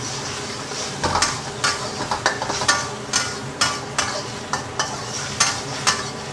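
Beaten eggs sizzling in hot oil in a wok while a metal spatula pushes and scrapes them, giving sharp scraping strokes about twice a second over the steady sizzle.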